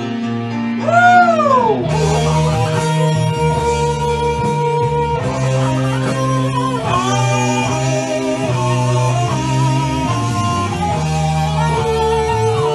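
Music: a rock backing track led by an electric guitar, with a note gliding steeply down about a second in, then long held notes over a steady bass line.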